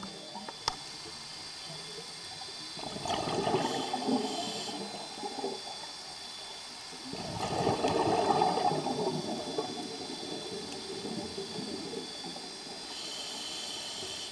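Underwater: a scuba diver's exhaled breath bubbling out of the regulator in two long gurgling bursts of about three seconds each, a few seconds apart. Two sharp clicks come just before them, near the start.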